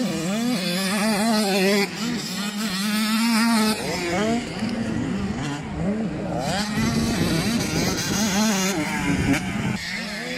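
Several 85 cc two-stroke motocross bikes racing. Their engines rev hard, the pitch rising and falling over and over as the throttles open and close, over a steadier engine drone.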